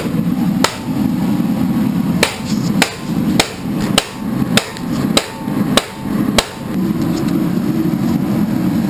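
Hammer blows on metal: about nine sharp strikes, roughly one every 0.6 s through the first two-thirds, some with a brief metallic ring, over a steady low engine hum.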